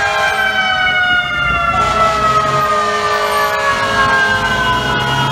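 Fire truck siren winding down in one long, slow, falling wail.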